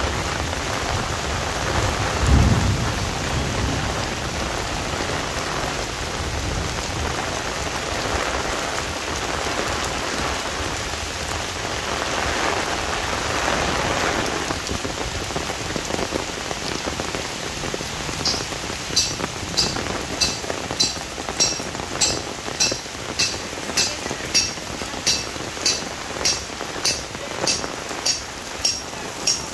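Heavy monsoon rain hissing steadily on an umbrella, with a brief low rumble of thunder about two seconds in. About two-thirds of the way through, a regular high-pitched chirping starts, roughly two chirps a second, and carries on to the end.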